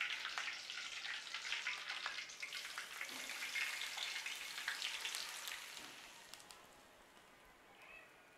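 Hot oil tempering (baghar) of mustard seeds, sliced garlic and curry leaves sizzling and crackling, poured from the pan over spiced vegetables for pickle; the sizzle dies away about six seconds in.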